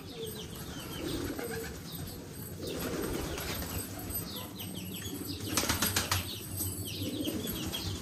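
Fantail pigeons cooing, with a brief flutter of wings about five and a half seconds in.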